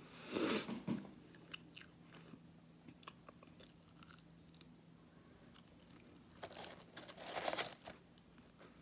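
A person biting and chewing fast food close to the microphone: a loud crunchy burst in the first second and another about two-thirds of the way in, with faint small clicks of chewing between.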